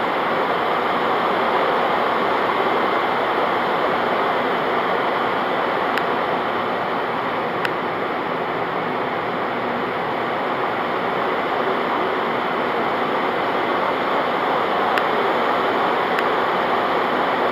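Steady rushing cabin noise of an airliner in flight, engines and airflow heard from inside the passenger cabin, with a few faint clicks.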